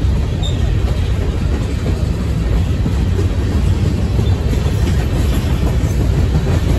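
Freight train of hopper cars rolling past, a loud, steady low rumble of steel wheels on rail.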